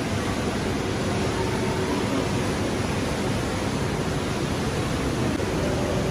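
Steady rushing background noise with a faint hum, the constant roar of the indoor aquarium hall above the open tank.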